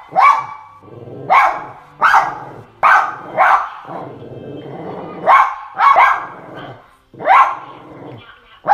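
Dog barking at the television, about eight short, sharp barks, several coming in quick pairs, with the TV film's soundtrack faint underneath between them.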